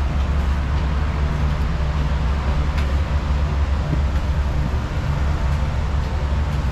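A steady low engine rumble that holds at one pitch, with no revving.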